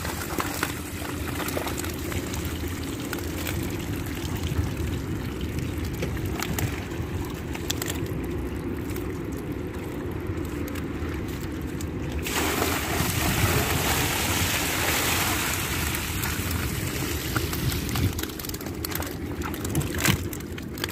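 Muddy water sloshing and dripping, with wet mud squelching underfoot and a bamboo basket being handled, over a steady low rumble.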